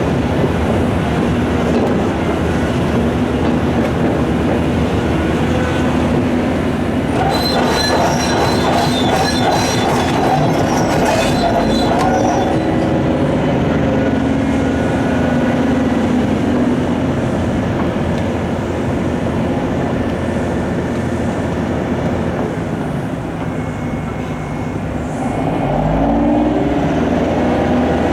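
Heavy quarry machinery working: the Volvo EC700 excavator's diesel engine and hydraulics running steadily and loud, with a high metallic squealing for several seconds about a third of the way in. The engine sound dips, then rises again near the end.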